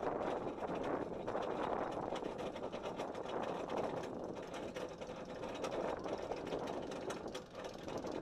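Steel Eel roller coaster train climbing its chain lift hill: the lift chain clatters steadily under a rapid, irregular clicking of the anti-rollback ratchet.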